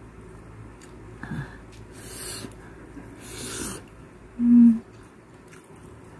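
Close-up eating sounds from a woman eating grilled fish with her fingers: a few short breathy sounds at the mouth. About four and a half seconds in comes a short, loud, steady hummed tone.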